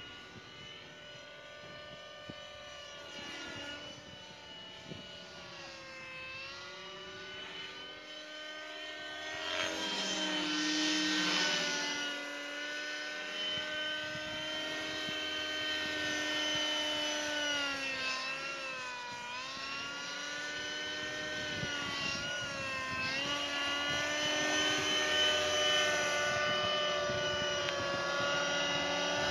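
Radio-controlled nitro model helicopter flying: a high engine-and-rotor whine that swings up and down in pitch several times with the throttle. It grows louder as the helicopter comes in close near the end.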